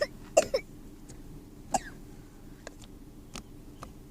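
Slime being squeezed and worked by hand, giving short, sharp wet pops and clicks at an irregular pace, a few loud ones in the first two seconds and fainter ones after.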